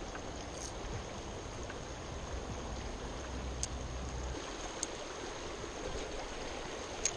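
Stream water running steadily over shallow riffles, with a few faint ticks.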